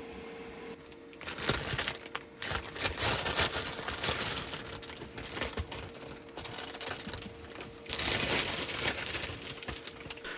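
Crinkling and rustling with irregular clicks as food ingredients and their packaging are handled and put into an electric pot, over a faint steady hum from the portable power station's cooling fan.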